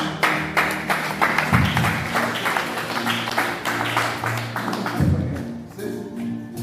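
Live music with a fast, even percussive beat of sharp strokes over sustained low notes. The beat drops away about five seconds in, leaving the low notes.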